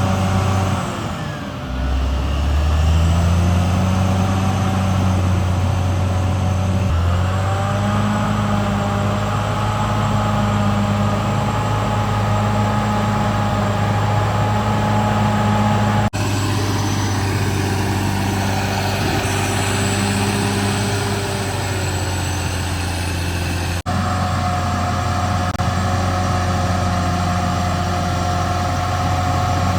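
Caterpillar D6R XL bulldozer's diesel engine running hard; the engine note drops and then climbs again about two seconds in, and the sound jumps abruptly twice, at cuts between shots.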